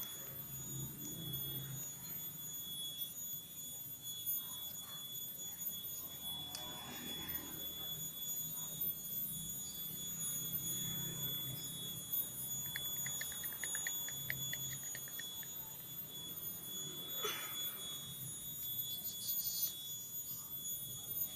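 A steady high-pitched tone with fainter higher overtones, the unexplained strange sound, over a low uneven hum. A run of about a dozen quick ticks comes a little past halfway.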